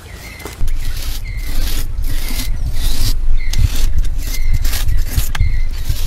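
Rhythmic scraping and rubbing strokes, about two a second, of a hand tool worked over the plastered face of a pillar, with a heavy low rumble underneath. The strokes start suddenly about half a second in.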